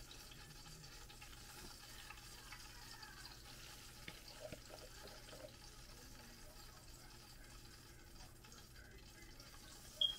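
Faint liquid sounds as a metal ladle lifts spiced hot-oil sauce and lets it pour and drip back into a plastic mixing bowl. Just before the end comes a single sharp clink as the ladle knocks against the metal pot of hot oil.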